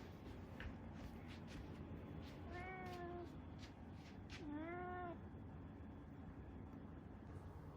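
Domestic cat meowing twice, two short calls about a second and a half apart, the second rising at its start.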